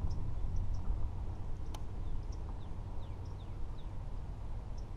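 Low, steady wind noise on the camera microphone over open water, with faint high bird chirps and a few quick falling bird notes scattered through it. One sharp click a little under two seconds in.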